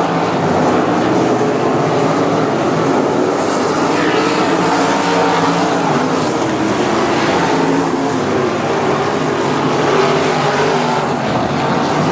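A field of 305 winged sprint cars racing, their V8 engines running hard together in a loud, steady, overlapping engine sound.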